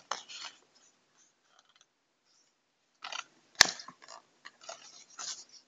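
Packaging being handled during an unboxing: irregular crinkling and rustling, with a pause in the middle and one sharp click about three and a half seconds in.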